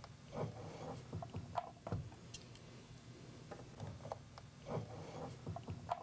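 Faint handling noise of plastic balance-lead plugs being pushed into the ports of a LiPo battery charger, with several light clicks and knocks scattered through.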